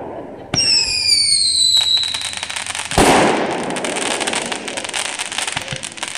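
Consumer fireworks going off: a short falling whistle about half a second in, a sharp bang about three seconds in, then continuous crackling and hissing of a spark fountain.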